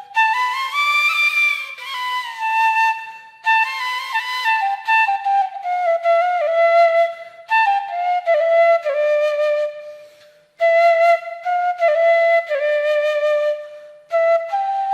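Background music: a solo flute playing a slow melody, note by note with small slides, in phrases separated by short breaths.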